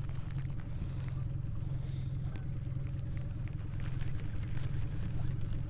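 Boat's outboard motor idling, a steady low hum, with a few faint light ticks over it.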